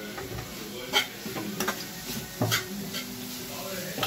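A spoon knocking and scraping against a nonstick frying pan while spices are stirred into the filling: three sharp clicks, roughly a second apart.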